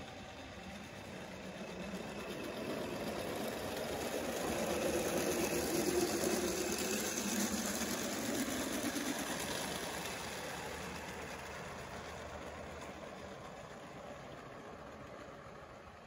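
Small live-steam model locomotive running past with a train of cars, its steam engine and wheels on the rails getting louder to a peak about six seconds in, then fading as it goes away.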